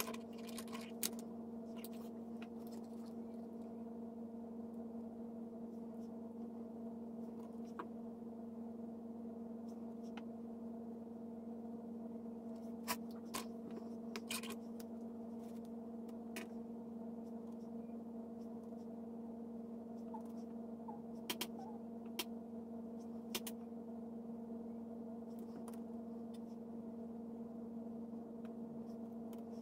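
A steady hum made of a few even, pitched tones, with scattered faint clicks and taps from makeup compacts and brushes being handled. The clicks come a few at a time, most clearly near the middle and about two thirds of the way through.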